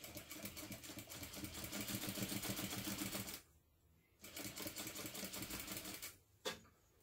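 Sewing machine running at a steady speed as it top stitches a seam through layered cotton fabric, in two runs of about three and two seconds with a short pause between, followed by a single sharp click near the end.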